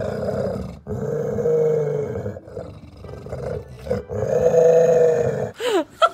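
A large dog growling at its food bowl, several long growls with short breaths between: food guarding against the kitten nosing in beside the bowl.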